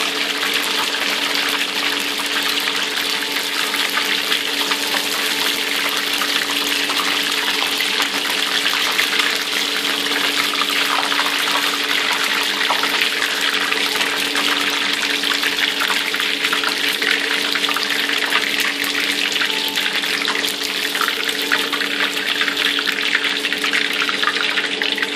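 Battered chicken pieces deep-frying in hot oil in a wok: a steady, dense sizzle of bubbling oil, with a low steady hum underneath.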